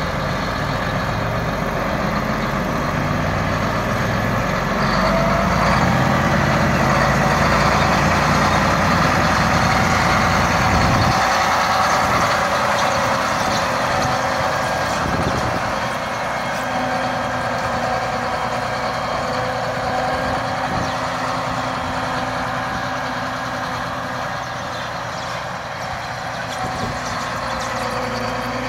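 John Deere 8295RT tracked tractor's diesel engine running steadily as the machine drives past on its rubber tracks and turns away. It is loudest from about a fifth to a third of the way in, then the deep rumble drops off and it grows quieter.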